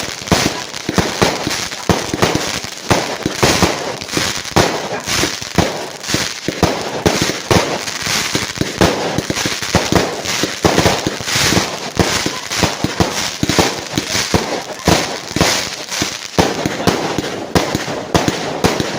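Fireworks going off in a fast, unbroken run of sharp bangs and crackles, several a second.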